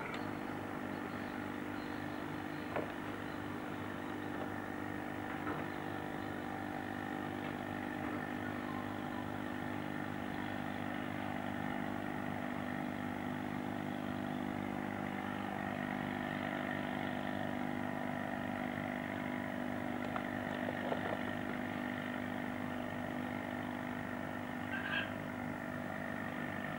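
An engine running at a steady idle, a constant-pitched drone that doesn't change, with a couple of faint knocks.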